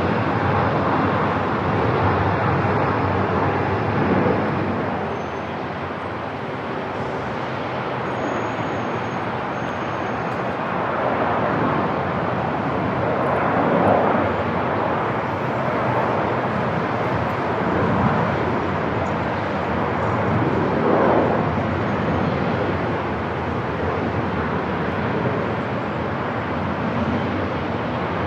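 Airport ambience: a steady rush of aircraft engine noise that swells a little now and then.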